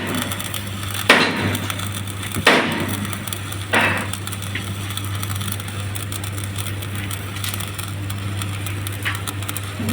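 Metal striking metal at a stick-welding bench: three sharp clinks with a short ring, about a second and a half apart, over a steady electrical hum.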